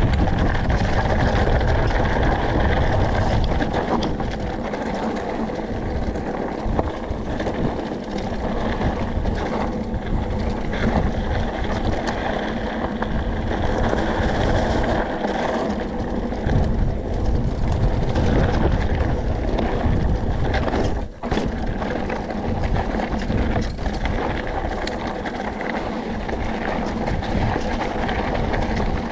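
Mountain bike descending loose, rocky singletrack: wind rushing over the camera microphone, with tyres crunching on dirt and gravel and the bike rattling over rocks. The sound dips briefly about two-thirds of the way through.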